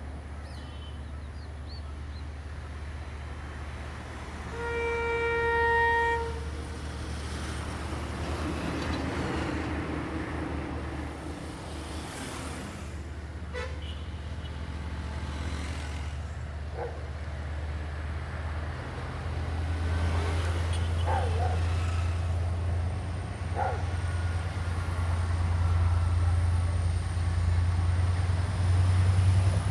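Sri Lankan diesel train approaching, its engine drone growing steadily louder. The horn gives one steady blast of about a second and a half, about four and a half seconds in.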